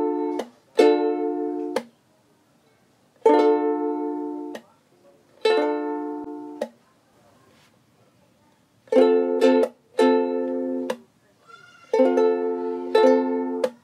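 Ukulele strumming chords unaccompanied. Each chord rings briefly and is cut off sharply, in short groups with near-silent gaps between them.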